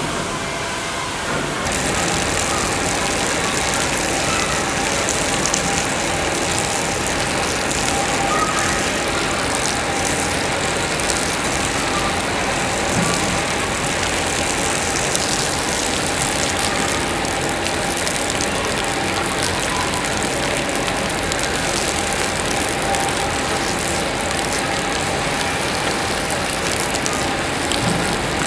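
Steady hiss of a water jet spraying onto wet concrete and a two-wheel self-balancing scooter, over a faint steady mechanical hum; it starts about two seconds in.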